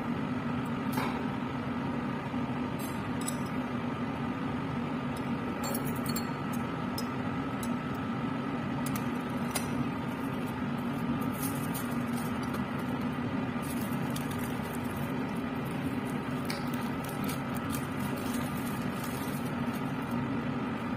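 Steady whoosh and hum of a laminar air flow cabinet's blower, with scattered light clinks of steel forceps against glass petri dishes and jars.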